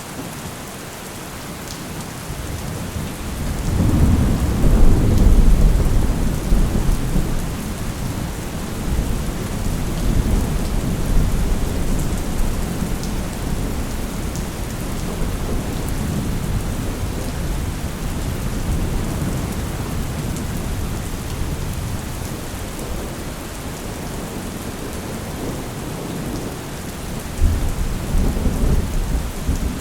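Steady rain hissing with rolling thunder: a deep rumble swells about three seconds in, peaks and slowly fades, and another shorter rumble comes near the end.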